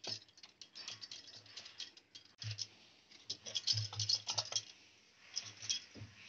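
Wire whisk beating a thick flour, milk and sugar batter in a mixing bowl: a fast, irregular clatter of the wires against the bowl, with a short pause about five seconds in.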